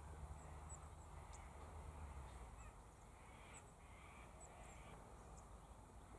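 Near silence: quiet outdoor ambience with faint, short, high-pitched chirps scattered through it and a faint low hum in the first couple of seconds.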